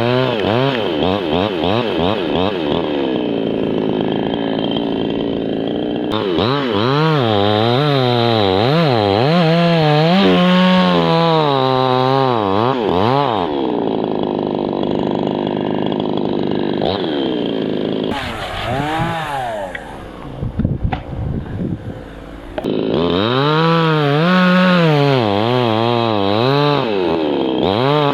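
Two-stroke chainsaw running at high revs, cutting birch wood, its engine pitch wavering up and down as the chain loads and frees in the cut. About eighteen seconds in it drops back to a lower, rougher note for a few seconds, then revs up again and cuts on.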